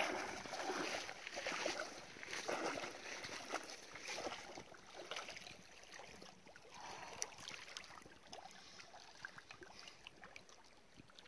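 Shallow lake water splashing and sloshing around wading legs, with irregular splashes loudest in the first few seconds, then dying down to faint lapping.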